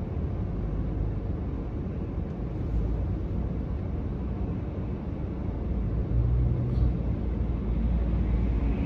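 Road noise inside a moving car's cabin: a steady low rumble that gets a little louder about six seconds in.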